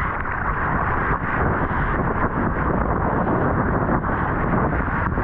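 Steady roar of rushing whitewater and wind buffeting an action camera's microphone while riding a wave.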